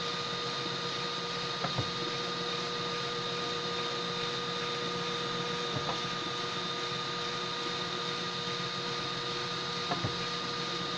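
Homemade 3D printer running mid-print: a steady mechanical hum and hiss with a few constant tones, broken by three short chirps of the moving motors about four seconds apart.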